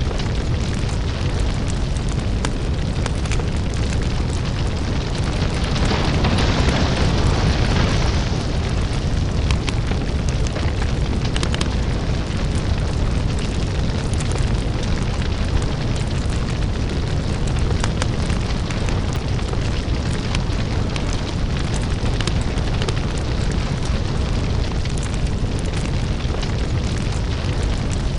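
Crackling lava ambience: a steady deep rumble with scattered crackles and pops, and a louder hissing surge about six seconds in that fades after two seconds.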